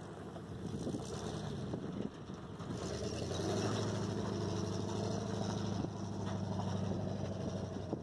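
An older pickup truck's engine running as the truck drives up a dirt track. It works harder and gets louder about three seconds in, then holds steady.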